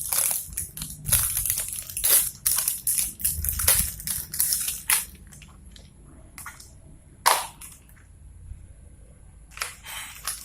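Plastic toy packaging crinkling and crackling as it is handled and torn open: a dense run of crackles for about five seconds, then a few isolated clicks, one sharper near the seven-second mark.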